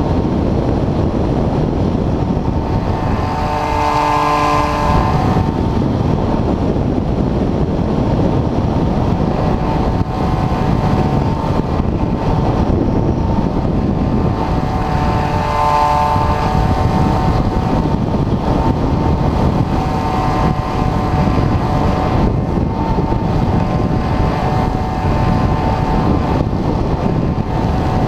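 Wind buffeting the onboard camera's microphone on a large RC glider in flight, with the glider's electric motor and propeller whining in brief bursts: about four seconds in, again around sixteen seconds, and more faintly twice after that.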